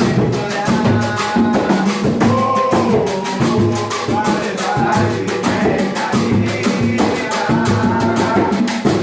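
Music with a steady beat of shakers and drums under a melody line.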